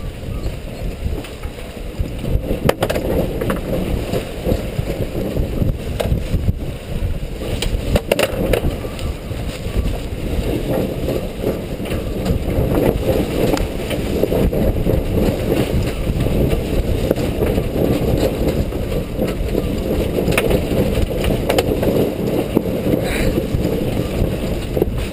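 Strong wind buffeting the microphone aboard a sailboat: a loud, rough, continuous rumble, with a few sharp knocks.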